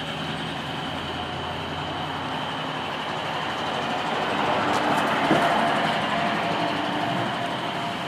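A vehicle passing by outside: a rush of noise that rises to its loudest about five seconds in and then fades, over a steady high-pitched whine.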